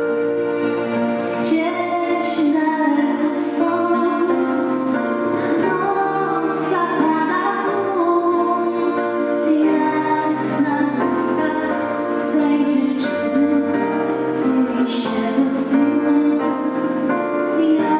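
A teenage girl singing a Polish patriotic song solo, with instrumental accompaniment.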